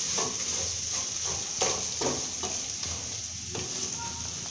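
Beef fry sizzling in a metal pot while a wooden spoon stirs it, with a scrape every half second or so over a steady hiss of frying.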